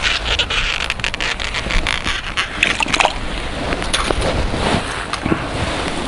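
Close handling noise: rustling of a thick winter mitten and jacket, with dense crackles, many in the first three seconds, over a low rumble of wind on the microphone.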